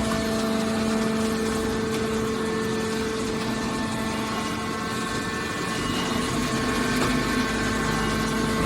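Hydraulic scrap metal baler running, its hydraulic power unit humming steadily at a constant pitch.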